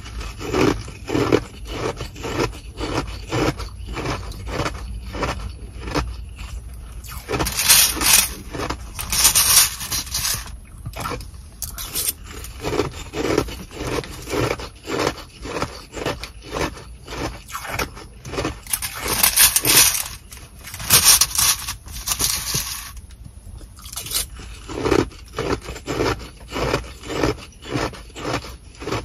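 Sonic nugget ice being chewed, a steady rhythmic crunching, broken a few times by louder bursts of the plastic bag rustling and a plastic spoon scooping through the ice.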